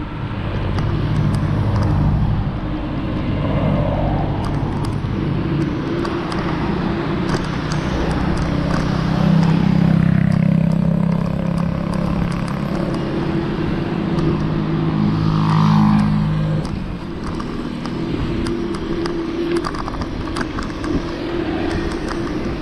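A motor vehicle's engine humming close by over a steady rush of wind and road noise; the engine hum drops away about sixteen seconds in.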